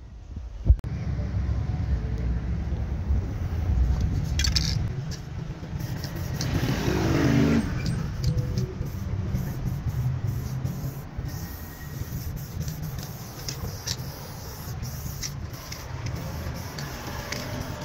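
Aerosol spray paint can hissing in short, broken bursts over a steady low rumble of street traffic, with a louder swell of hiss a few seconds in.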